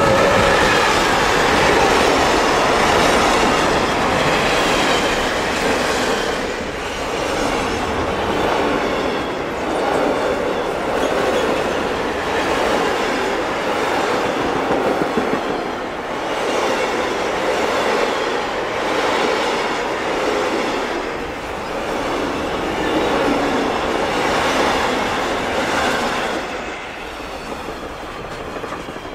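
Freight train of covered sliding-wall wagons passing close at speed: a continuous rolling rumble and rush of wind, with a repeating clatter as each wagon's wheelsets go by. It falls away near the end as the last wagons pass.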